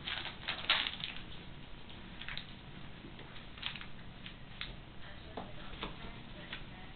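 Kittens scampering and scuffling on carpet: irregular light taps and scratchy scrapes of paws and play, bunched together in the first second and scattered after.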